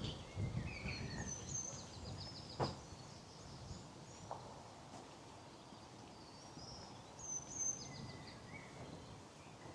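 Several small songbirds singing and calling, with short high chirps and quick trills throughout. Soft footsteps on a path are heard in the first second or so, and a single sharp click comes about two and a half seconds in.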